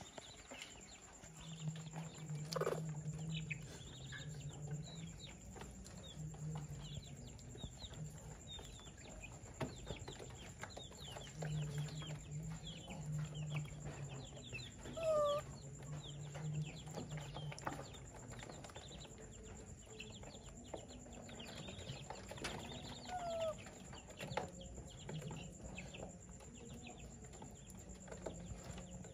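Caged chickens clucking, with many short high chirps throughout and a low clucking sound in stretches of a second or two.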